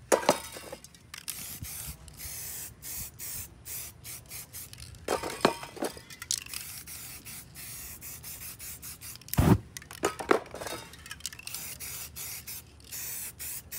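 Aerosol spray-paint can hissing in many short bursts as paint is sprayed over stencils, with scraping and a few louder knocks from the stencils and board being handled.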